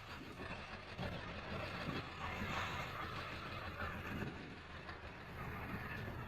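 A motor vehicle's engine rumble and road noise, swelling about two and a half seconds in and easing off again.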